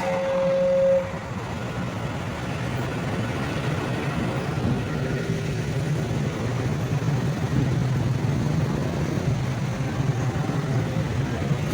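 Road vehicles, motorcycles and cars, with their engines running in a steady low rumble. A steady tone sounds at the start and cuts off about a second in.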